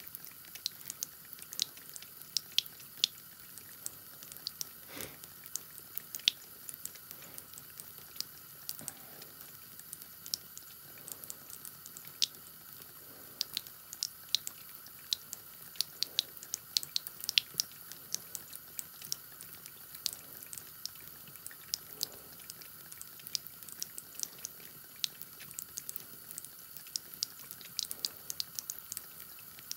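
A thin stream of tap water trickling steadily into a bathroom sink, with the quick, irregular wet clicks of a cat lapping water straight from the stream, several a second.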